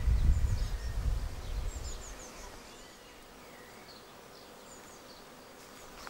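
Honeybee swarm buzzing around the entrance of a swarm trap, loudest in the first two seconds and then fading away. Faint high chirps of small birds scattered throughout.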